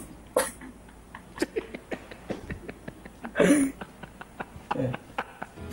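A man laughing in short, breathy, irregular bursts, with a louder burst about three and a half seconds in.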